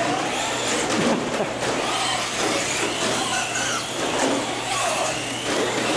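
Electric motors of Traxxas Slash RC short-course trucks whining as they race, the pitch rising and falling as they speed up and slow for the corners.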